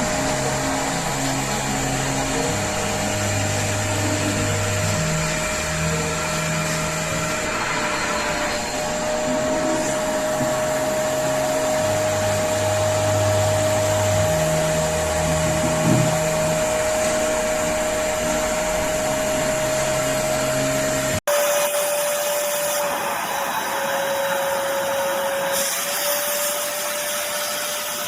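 Hoover Spotless portable carpet and upholstery spot cleaner running, its motor giving a steady whine over a hiss of suction. The sound cuts out for an instant about three quarters of the way through, then carries on.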